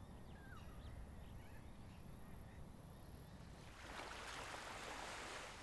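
Faint seaside ambience: small birds chirping, then a soft rush of surf swelling up about four seconds in.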